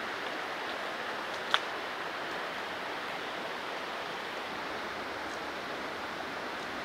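Steady, even outdoor rushing noise, with one sharp click about one and a half seconds in.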